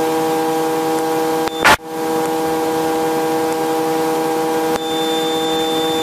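Helicopter cabin noise heard through the intercom: a steady whine of several even tones over a hiss. A short click comes about one and a half seconds in, and a thin high tone joins near five seconds in.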